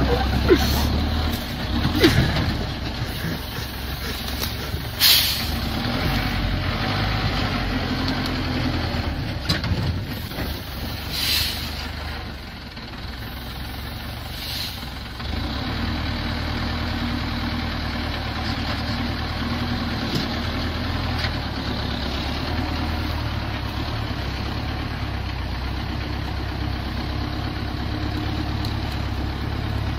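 Engine of a loaded six-wheel logging truck running steadily as it crawls over a muddy forest track, with three short hisses in the first half. The engine eases off around the middle and picks up again a few seconds later.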